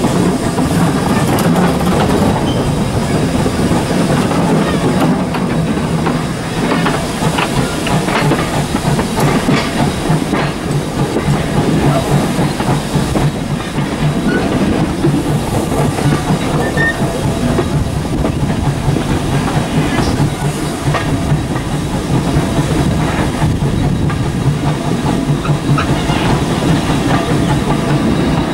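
Steam train running along the line, heard from aboard: steady wheel-and-track rumble with clicks and knocks over the rail joints, and steam hiss.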